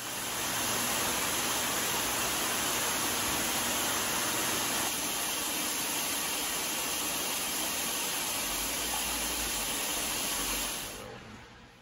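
Water gushing steadily out of a discharge hose onto a perforated plastic wash floor as soiled water is pumped through a submerged rug and purged. The rush fades in at the start and fades out shortly before the end.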